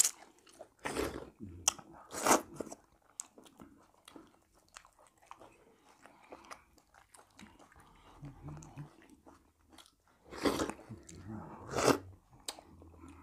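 Close-miked eating of fufu and seafood okra soup: chewing and biting with many small mouth clicks. Four louder crunchy bursts come, two near the start and two near the end.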